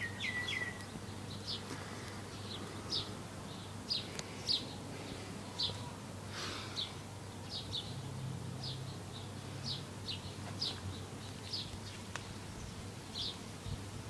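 A small bird chirping over and over, short high notes about once a second, with a faint low hum underneath.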